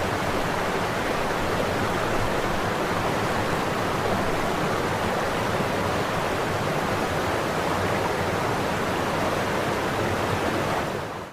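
Steady rush of falling water from a waterfall, an even hiss that fades out and stops near the end.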